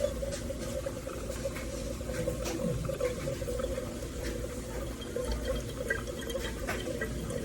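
Compact single-serve drip coffee maker brewing: water gurgling and dripping into the mug over a steady low hum, with small scattered ticks.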